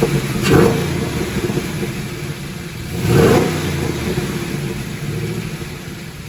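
2015 Camaro SS's cammed 6.2-litre V8, fitted with an aftermarket cold air intake, running with its exhaust note swelling briefly twice, about half a second in and about three seconds in.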